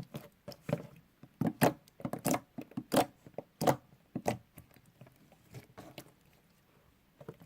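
Slime being squished and stretched by hand, making irregular wet clicks and pops that come thick in the first half and thin out, falling almost quiet near the end.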